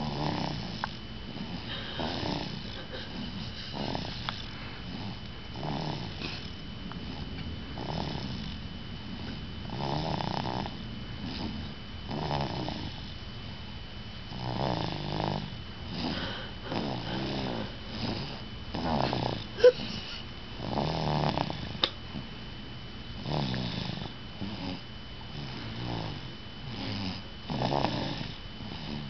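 Snoring: slow, regular snores about one every two seconds, with a single sharp click just past the middle.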